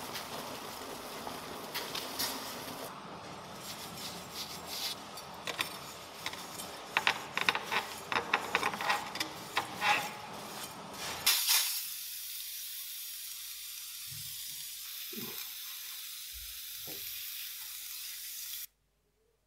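Boiling hot-bluing bath sizzling and bubbling in a metal pan around the hung revolver frame, with lots of sharp crackles. About eleven seconds in the sound changes to a steadier high hiss with a few dull knocks, which stops abruptly near the end.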